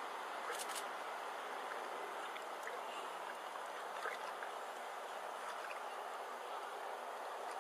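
Steady, quiet wash of lake water, with a few faint small splashes.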